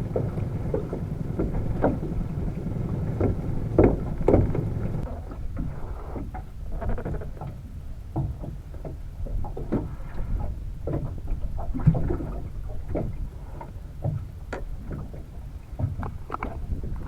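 Irregular knocks, thumps and water splashes aboard a small fishing boat, over a low rumble that fades after about five seconds.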